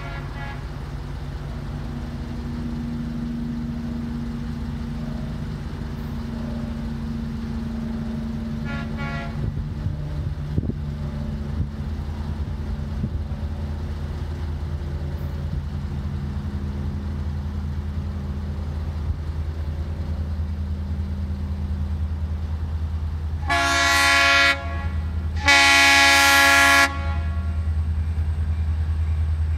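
Diesel freight locomotive approaching, its low engine rumble growing steadily louder. Its horn sounds faintly about a third of the way in, then blows loud near the end: a short blast followed by a longer one.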